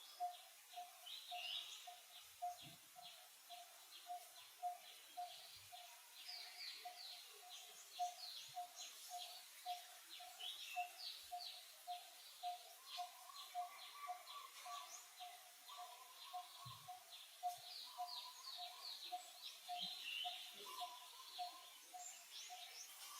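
Faint outdoor birdsong: many quick high chirps over a steady, evenly repeated low note about two or three times a second.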